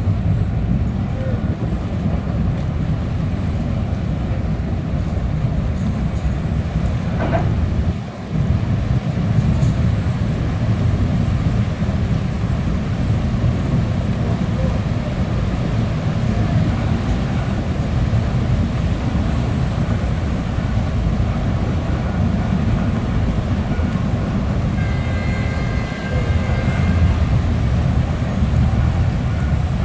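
Boat engines rumbling steadily and low while tugboats push a large passenger ship in to berth, with a brief drop in level about eight seconds in.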